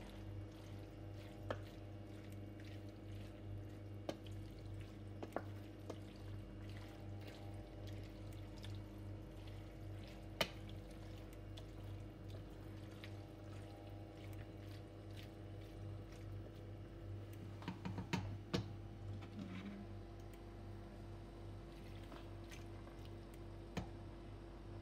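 Cut squid cooking in its own juices in a stainless steel pot, stirred with a wooden spoon: wet bubbling and squishing, with scattered sharp knocks of the spoon against the pot. A steady low hum runs underneath.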